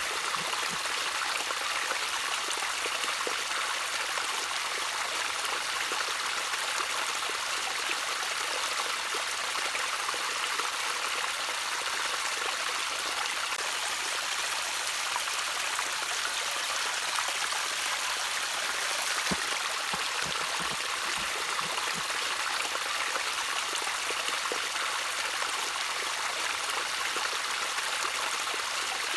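Small stream trickling over stones, a steady even rush of water with light gurgles.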